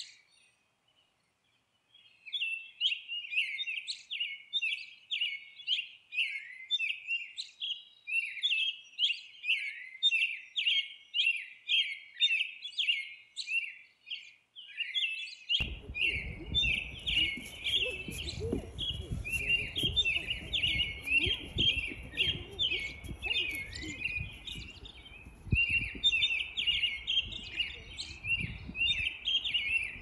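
Small birds chirping rapidly and continuously in short repeated notes. About halfway through, a low rumbling noise joins them.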